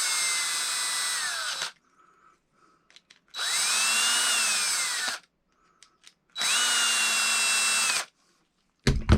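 Power drill running in three short bursts, its motor whine rising and falling in pitch, as it snugs down the terminal screws on a wall outlet. There is a short knock near the end.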